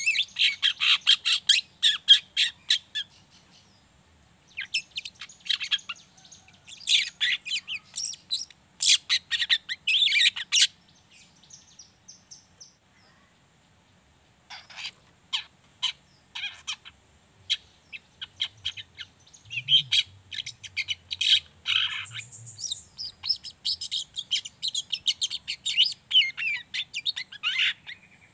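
Juvenile long-tailed shrike (cendet trotol) singing its fast, thin 'ngriwik' twitter. The song comes in phrases of rapid high chattering notes, separated by short pauses, with a longer pause of a few seconds a little before halfway.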